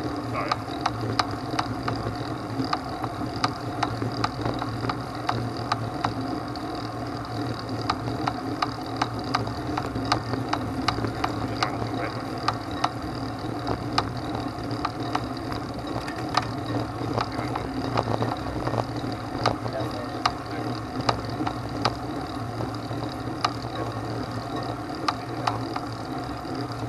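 A vehicle engine running steadily, with frequent clicks and rattles throughout as it travels over rough, stony track.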